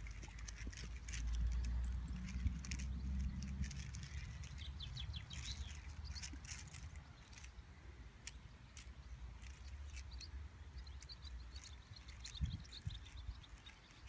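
Small plastic links of a twisting chain fidget toy clicking as it is bent and turned in the hands, with wind rumbling on the microphone, strongest at first. A bird chirps in short runs in the background.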